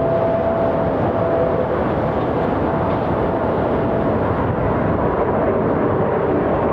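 Frontier Airbus A321neo taking off, its two Pratt & Whitney geared turbofans at takeoff thrust, heard as a steady, continuous jet rumble with a faint whine that fades partway through.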